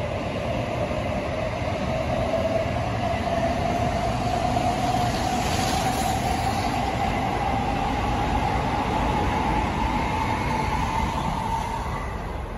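N700A Shinkansen pulling out and picking up speed, its motor whine rising steadily in pitch over the rumble of the wheels. A brief hiss comes about six seconds in, as the end car passes.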